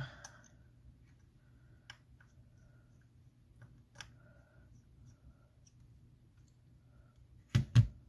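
Faint clicks and light scraping of a precision screwdriver backing out the bottom pentalobe screws of an iPhone 8 Plus, then two louder knocks in quick succession near the end.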